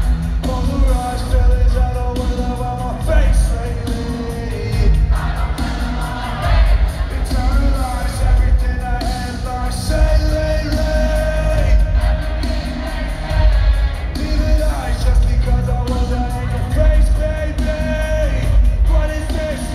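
Live rock band playing through an arena PA, heard from the seats: strong steady bass and drums with a regular beat, guitars, and a male singer's vocal carried over the top.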